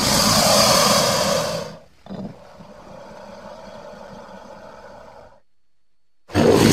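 A crocodile hissing and growling: a loud raspy hiss-growl of a little under two seconds, then a quieter, longer rasping growl of about three seconds. Another loud sound starts just before the end.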